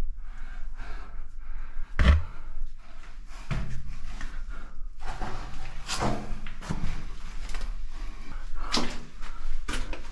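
Knocks and scrapes of a caver crawling through a tight rock passage, body and gear bumping and dragging against rock, with sharp knocks about 2, 6 and 9 seconds in.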